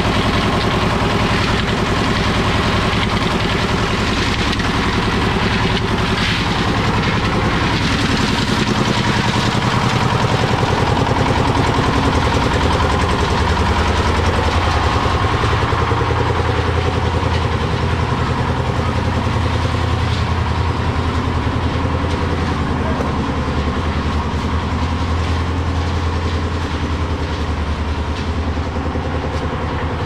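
Engine-driven drum concrete mixer running steadily, its drum turning a load of stone aggregate and concrete; the low engine note grows heavier about nine seconds in.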